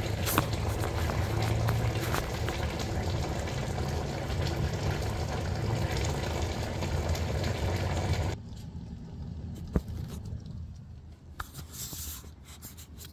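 Steady rushing kitchen noise with a low hum that cuts off suddenly about eight seconds in. A few faint clicks and knocks follow as the phone is handled.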